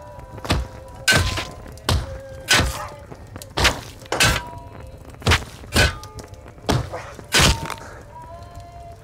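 A dozen or so heavy blows from a metal pot and a metal rod, struck down in turn at roughly two a second, beating out something that is smouldering. The blows stop near the end, and faint steady background music runs underneath.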